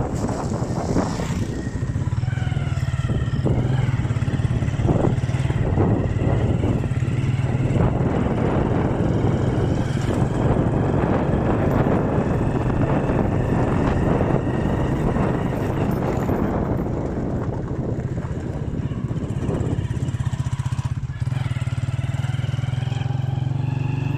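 Motorcycle engine running steadily while riding, heard from the rider's seat, with wind and road noise on the microphone.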